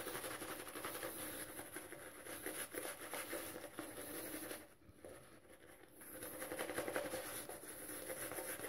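Omega boar-bristle shaving brush swirled over lathered face and stubble: a faint, fast brushing of wet bristles, stopping for about a second just before midway.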